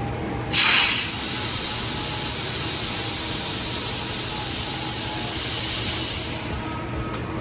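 Overpressure limit valve on a two-stroke marine diesel's SCR system lifting at about 0.6 bar overpressure and venting. A sudden loud hiss bursts out about half a second in, then eases to a steady hiss that fades out near the end.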